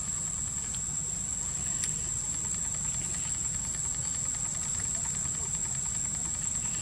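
Steady high-pitched insect buzz, one unbroken tone held throughout, over a low steady rumble.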